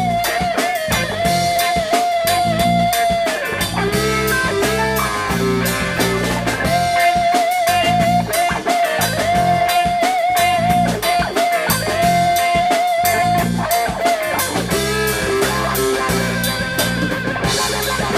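Instrumental break of a blues-rock song played by a band. An electric guitar plays a lead of long held notes with wavering pitch and bends over bass guitar and a steady drum beat.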